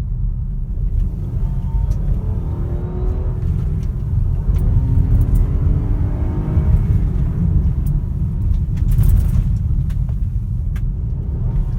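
Car engine running with a heavy rumble, its tone rising and falling as the revs change. At higher revs it gives an unexplained whistle, which the owner is asking about on a car with 15,000 km on it.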